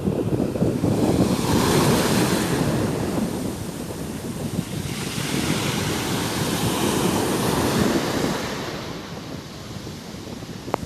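Sea waves breaking and washing up, swelling twice and easing off near the end, with wind rumbling on the microphone.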